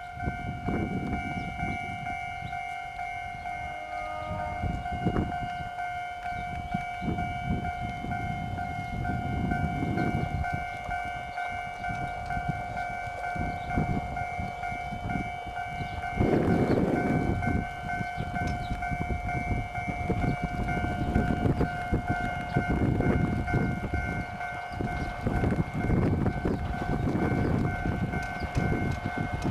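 A Nagano Electric Railway 3500-series electric train approaches, its running noise coming and going in gusts and growing heavier in the second half. A steady high ringing tone with overtones sounds throughout.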